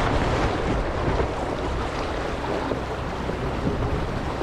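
Wind buffeting the microphone over the steady rush of water along a racing sailboat's hull.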